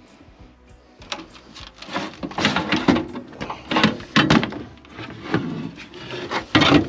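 Sheet-metal blower assembly of a Lennox air handler being slid out of its cabinet: irregular scraping and knocking of metal on metal. The sounds grow dense from about two seconds in, with the loudest knock near the end.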